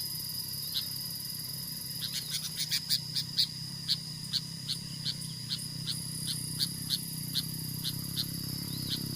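Outdoor insect chorus: a steady high-pitched drone with a run of short, sharp chirps repeating about two to three times a second, loudest and densest a few seconds in.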